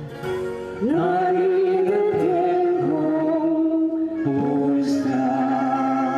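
A man and a woman singing a duet into handheld microphones, holding long notes, with a slide up in pitch about a second in.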